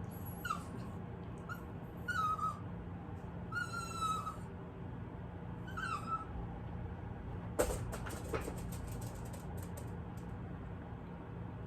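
A dog whimpering: about six short, high-pitched whines over the first six seconds, some bending up or down in pitch. About eight seconds in comes a quick run of clicks and rattles, over a steady low hum.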